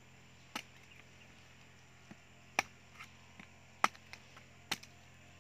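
Machete chopping into the husk of a young green coconut: four sharp blows spaced roughly a second or more apart, with a few lighter taps between them.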